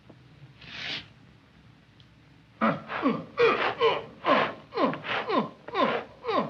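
A short hissing breath about a second in, then from about two and a half seconds a rapid run of squawking cries from the cartoon metal-eating bird, each sliding steeply down in pitch, two or three a second.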